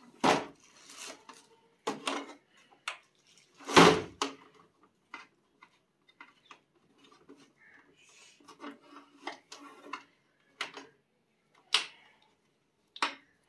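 Irregular knocks and clicks from handling a plastic exhaust fan. The plastic housing bumps on a wooden table, loudest just after the start and about four seconds in, followed by smaller clicks and rustles as its power cord is unwound.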